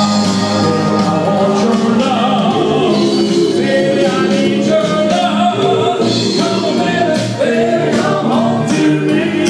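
Doo-wop song: a vocal group singing in harmony over instrumental backing.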